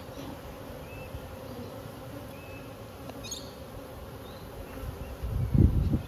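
Honey bees buzzing around an opened hive, a steady hum. Near the end a loud burst of low rumbling cuts in over it.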